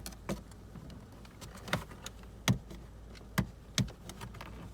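Scattered sharp plastic clicks and knocks, about five spaced irregularly, as a plastic trim tool works at clip-fastened dashboard trim, over a low steady hum.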